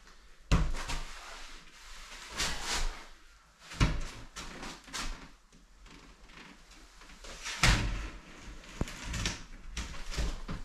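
A large Quick-Deck chipboard panel being handled and pushed up into place against the ceiling: scraping and rubbing of the board, broken by sharp knocks about half a second in, near four seconds and near eight seconds.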